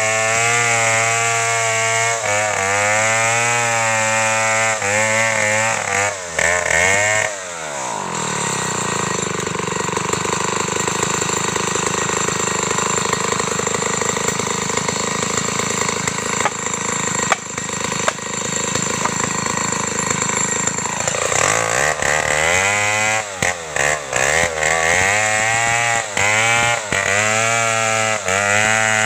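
Two-stroke chainsaw cutting into a tree trunk, its engine pitch dipping and recovering as the chain loads up in the wood. About seven seconds in the engine falls to a lower, rougher running for some thirteen seconds, then revs back up and cuts again with the pitch wavering.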